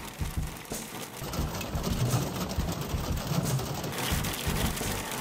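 Wind gusting on the microphone in irregular low buffets, over a dense steady pattering hiss.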